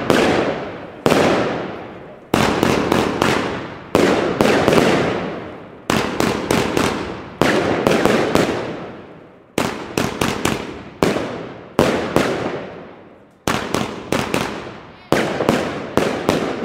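Blackboxx Ladykiller firework battery firing shot after shot: sharp aerial bangs, each trailing off over a second or so, with runs of three or four quick bangs in close succession between single shots.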